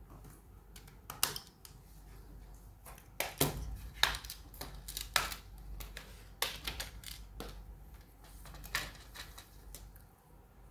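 A tablet's plastic back cover being pried off by hand: a scattered series of sharp clicks and snaps as the case clips let go, busiest in the middle, with light handling knocks.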